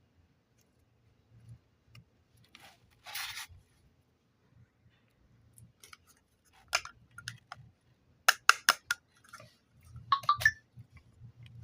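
Hands handling modelling clay and its packaging: a short rustle about three seconds in, then sharp clicks and snaps, with a quick run of four a little past the middle and another cluster near the end.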